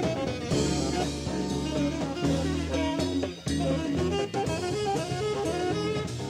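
A live band playing, with saxophone over drum kit, bass and keyboards.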